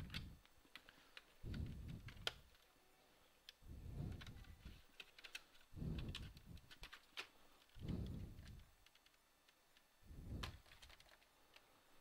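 Handling noise from the plastic case of a partly disassembled HP Pavilion g6 laptop. Scattered light plastic clicks and taps, with a few dull, low bumps roughly every two seconds as the case is handled.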